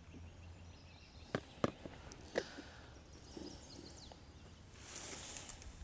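Faint handling sounds of worms being put onto a fishing hook: a few light clicks, then a brief rustle near the end.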